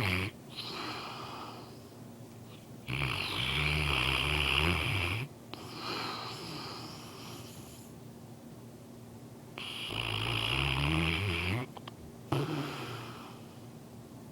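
English Mastiff snoring: two long, loud snores about six and a half seconds apart, each lasting around two seconds, with softer breaths in between.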